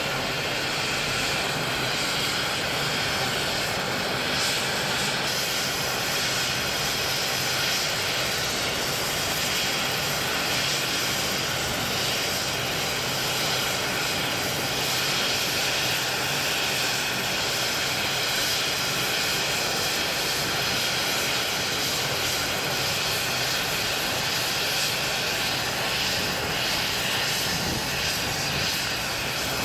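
Turbine helicopter running on the ground with its rotors turning: a steady rush of rotor and engine noise with a faint whine, holding level.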